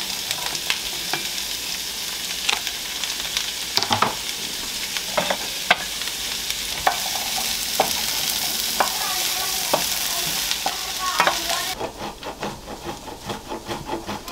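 Leeks and asparagus sizzling in butter in a stainless steel frying pan, stirred with a wooden spoon that knocks against the pan about once a second. Near the end the sizzle stops and gives way to the quick rhythmic rasp of a block of parmesan being grated on a metal box grater.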